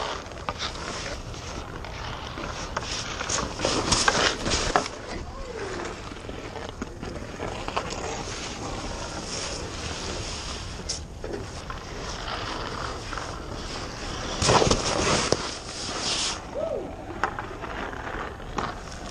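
Hockey skates and goalie pads scraping and shuffling on rink ice, with scattered sharp clacks. There are louder surges of scraping about four seconds in and again about fourteen and a half seconds in.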